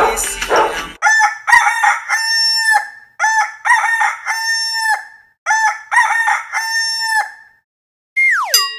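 A rooster crowing three times in a row, each crow a few short notes and then a long held one, on an otherwise silent track. Near the end a falling whistle-like slide drops steeply in pitch.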